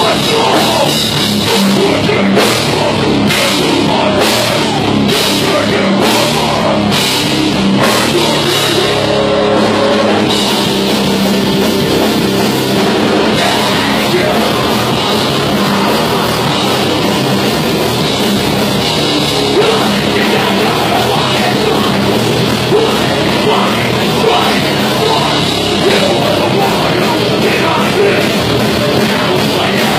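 A metal/hardcore band playing live, loud and without a break: distorted guitars, bass and a drum kit.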